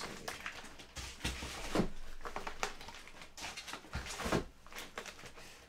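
Handling noise from a cardboard shipping box: irregular rustling of packing and light knocks as CGC-graded comic slabs are lifted out.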